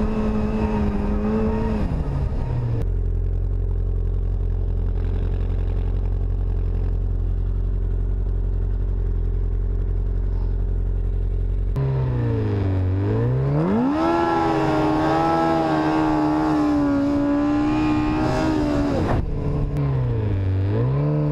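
Yamaha Apex snowmobile's four-stroke, four-cylinder engine. It runs steadily at speed, drops to a low steady drone after about two seconds, then swoops down and revs up about twelve seconds in and holds high revs. Near the end come a few quick revs rising and falling.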